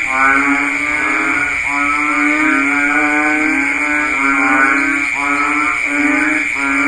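Several banded bullfrogs (Kaloula pulchra) calling in chorus: low, drawn-out droning calls that overlap, a new one starting about once a second, over a steady high-pitched drone.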